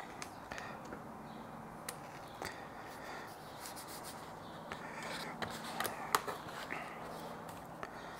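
Hands rubbing and pressing a vinyl skin down onto a laptop lid to push out air bubbles: soft scraping and rubbing with scattered light clicks and taps, a few louder clicks about six seconds in.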